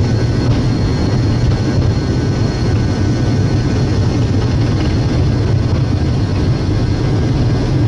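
Boeing 777 flight-deck noise on a rainy takeoff: a steady loud rush of engines and airflow with a low hum underneath, unchanging throughout.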